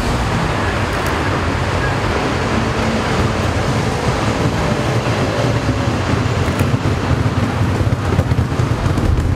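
Steady city street traffic noise, a continuous rumble with no distinct events.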